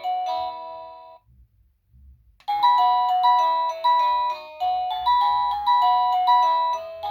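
EMASTIFF wireless doorbell chime playing its polyphonic ringtones: one electronic melody of bell-like notes ends about a second in, and after a short pause another tune starts, at roughly two notes a second.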